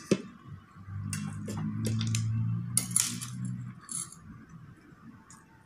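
A metal spoon clinking and scraping against a ceramic plate, with mouth sounds from eating, as sharp clicks about a dozen times. A low steady hum runs for a couple of seconds in the middle.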